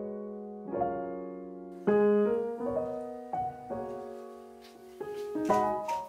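Background piano music: soft chords and single notes, each struck and left to fade.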